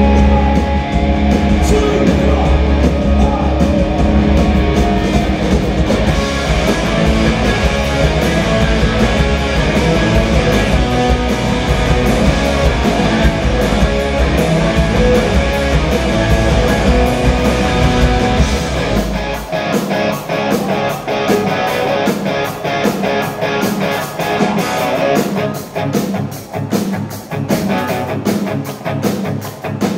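Rock band playing live on electric guitars, bass, drums and keyboard. About two-thirds of the way through, the heavy low end drops out and the music thins to choppy guitar strokes.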